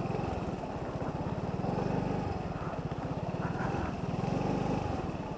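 Motorcycle engine running steadily at low speed, an even, rapid putter.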